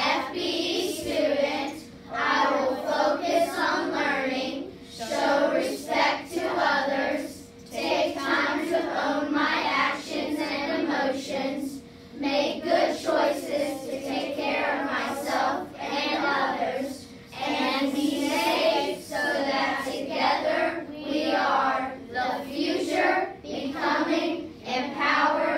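A group of schoolchildren speaking a school pledge in unison, line by line, in short phrases with brief pauses between them.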